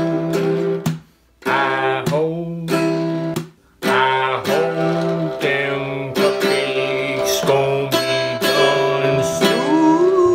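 Small toy acoustic guitar strummed in simple repeated chords, with a man's voice singing along in sliding tones. The playing breaks off briefly twice in the first few seconds.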